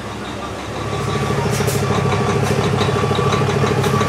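An engine idling, growing louder about a second in and then running with a fast, even pulse.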